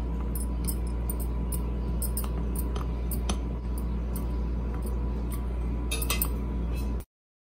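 Metal spoon stirring dry flour and ground peanut powder in a glass bowl, scraping and clinking against the glass now and then, with a small flurry of clinks about six seconds in, over a steady low hum. It cuts off suddenly near the end.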